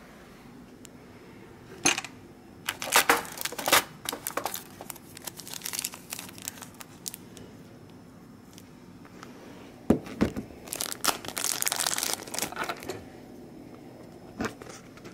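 Thin clear plastic bags crinkling as geocoins are handled in them, in two spells of crackling with a few sharp clicks.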